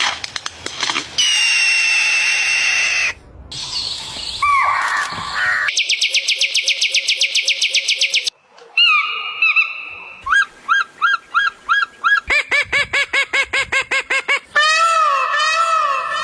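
A run of different bird calls, switching abruptly every second or few: held whistled notes, a fast even trill, then strings of repeated chirps, faster toward the end, and arching calls.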